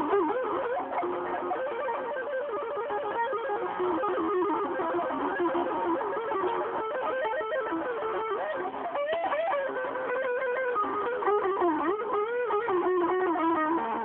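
Electric guitar played lead-style: a run of single notes with string bends and vibrato, the pitch sliding up and down throughout. The sound is thin, with no high end, as from a mobile phone recording.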